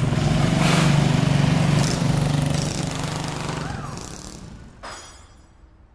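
Small minibike engine running steadily, then fading away over about a second. A single short knock near the end.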